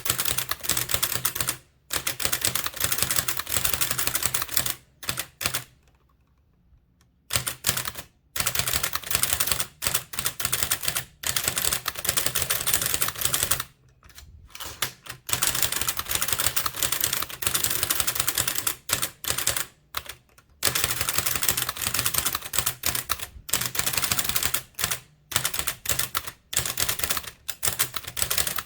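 Blickensderfer typewriter being typed on at speed: a rapid run of clacks as its deep, springy keys drive the type cylinder against the paper, a few characters a second. The run breaks off in short pauses, the longest about six seconds in.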